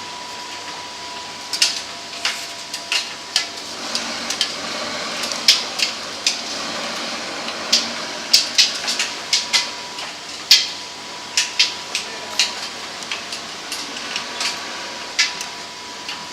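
Miele T5213 tumble dryer running, with a steady hum and a thin steady whine. Irregular sharp knocks and clicks come from the tumbling drum.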